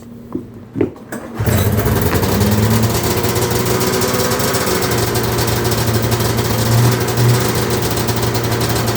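Arctic Cat 340 snowmobile's two-stroke engine started from cold. After a couple of short knocks it catches about a second and a half in and settles into a loud, steady idle.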